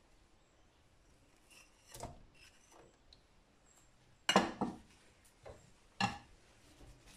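Kitchen handling sounds around a pan and a bowl: a soft knock about two seconds in, as grated jaggery is tipped into the pan, then a sharp knock, the loudest, just after four seconds, and another about six seconds in.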